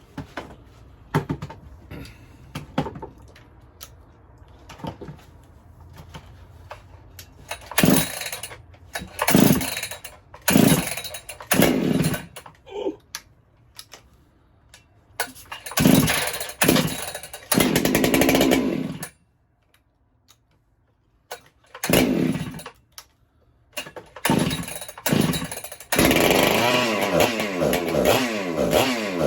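Ported Husqvarna 395XP two-stroke chainsaw being pull-started. It fires in short bursts that die out several times, then near the end keeps running, its revs rising and falling.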